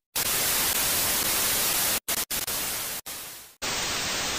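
TV static sound effect: a steady white-noise hiss with a few brief dropouts, giving way to a second stretch of hiss about three and a half seconds in.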